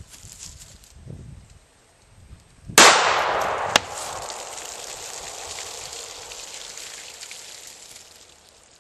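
A single gunshot about three seconds in: a .410 buckshot shell fired from a homebuilt .45/.410 derringer, followed by a long echo that fades over several seconds. A second sharp crack comes about a second after the shot.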